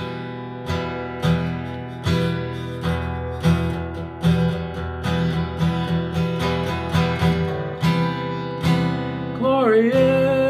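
Guitar strummed in a steady rhythm, about two strums a second, as an instrumental break. A man's singing voice comes back in near the end.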